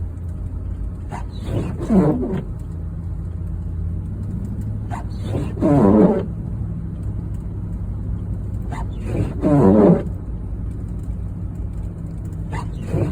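Vehicle engine hum with a loud groaning sound that repeats about every four seconds. Each groan starts with a short click and slides down in pitch.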